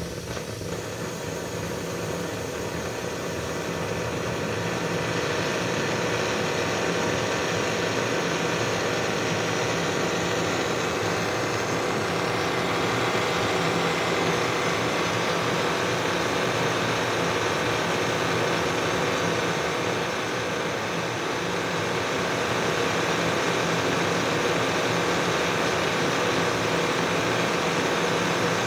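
Small brass paraffin-style blowlamp burning with a steady hissing rush as it heats the glow tube for hot-tube ignition. The flame grows louder over the first few seconds, then holds steady.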